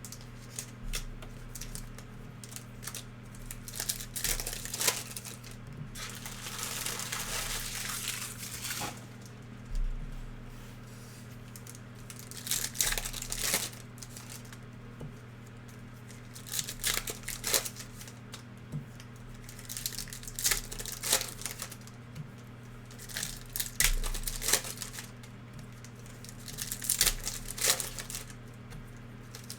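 Trading card packs being torn open and their foil wrappers crinkled, in irregular bursts with quieter gaps between. A steady low hum runs underneath.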